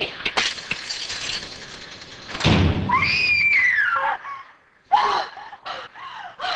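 A woman screams once, a long cry rising and then falling in pitch, starting about three seconds in right after a loud burst of noise. Short broken vocal sounds follow near the end.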